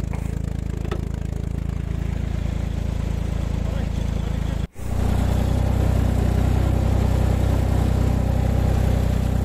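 Massey Ferguson tractor engine running steadily under load while pulling ridging ploughs through the soil. Just before five seconds in, the sound cuts out for a moment and comes back louder and deeper.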